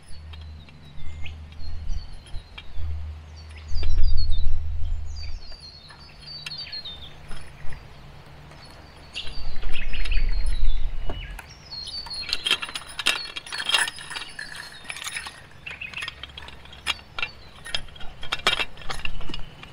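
Metal spring-gate springs and handles clinking and rattling as they are hooked onto a fence brace's wire loops and screwed around, in scattered short clinks that come thickest in the second half. Birds call in high descending runs.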